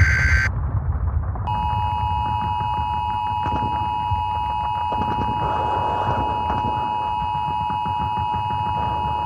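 Emergency Alert System audio: the tail of a buzzy SAME data-header burst, then about a second later the steady two-tone attention signal (853 Hz and 960 Hz together), over a continuous low rumble. It marks the start of a new alert broadcast.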